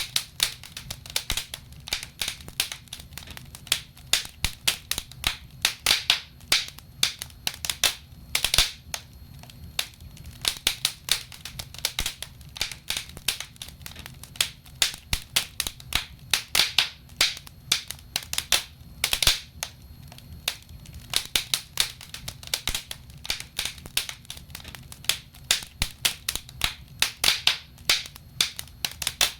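Wood logs burning in a fireplace, crackling and popping in quick irregular clicks, with a faint steady low hum underneath.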